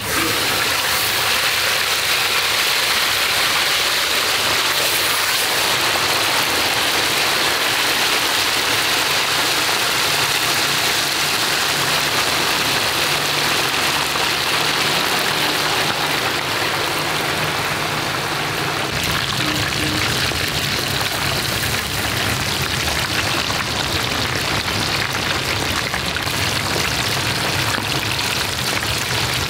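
Fish deep-frying in a large pan of hot oil: a loud, steady crackling sizzle that starts suddenly as the fish goes into the oil.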